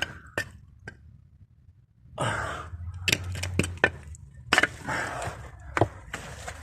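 A person squeezing through a narrow gap into a tunnel: clothing rustling and scraping against the sides, with scattered sharp clicks and knocks. It starts about two seconds in.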